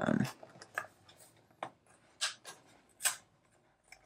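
Hands peeling the seal tab and prying open a small cardboard box: scattered short scrapes, rustles and clicks with quiet between, the loudest knock at the very start.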